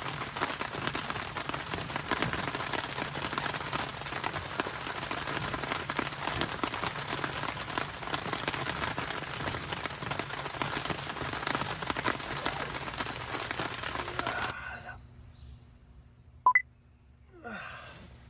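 Steady rain pattering, a dense hiss of countless drops, which cuts off abruptly near the end. One sharp, very short click follows in the quiet.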